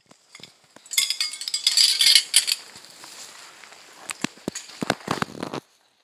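Light clinking and crackling as a thermos and dishes are handled: a dense patch of clatter about a second in, then scattered single clicks.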